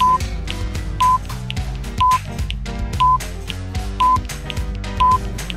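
Background music with a steady bass line, over which a short high beep sounds once a second: a quiz countdown timer ticking off the seconds.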